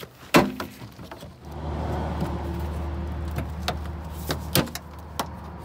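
Plastic bumper cover being pushed and snapped into place by hand: one sharp snap about a third of a second in, then several lighter clicks and knocks. A steady low hum starts about a second and a half in and keeps going underneath.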